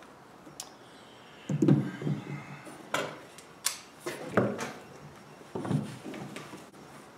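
A series of about five sharp knocks and clatters spread over several seconds, the kind of hard knocks made when gear is handled and set down, not gunshots.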